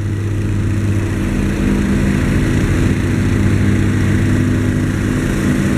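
Engine of construction machinery running steadily at a constant speed.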